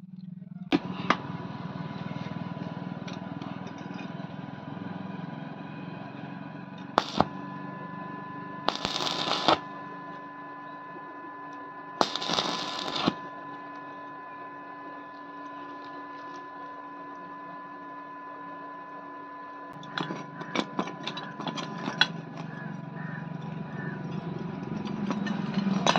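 Stick (arc) welder tacking a steel bolt onto a steel channel: two short bursts of arc crackle, about a second each, over a steady hum with a whine. A few sharp metal taps come before and after the bursts.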